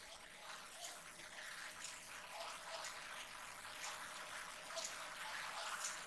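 Faint, scattered small clicks and rustles of hands handling the plastic parts of an Epson L1455 printer, over a low hiss.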